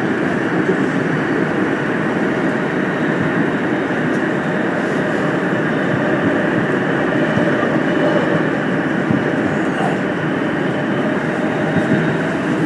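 Korail 351000-series subway train running through a tunnel, heard from inside the car: a steady rumble and rush of wheels on rail.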